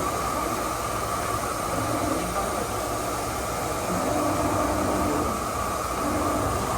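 Industrial pellet screw-extrusion 3D printer running: a steady whirring hiss with a constant high hum, and short motor whines that come and go every second or two.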